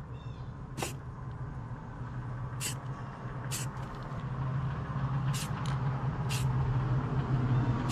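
A steady low engine hum from a motor vehicle, slowly growing louder. About six short, sharp hisses from an aerosol spray-paint can fired in quick taps are heard over it.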